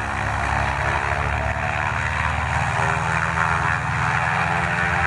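A Goodyear GZ-20A blimp's two piston engines run steadily with their propellers turning, giving a loud, even, low hum.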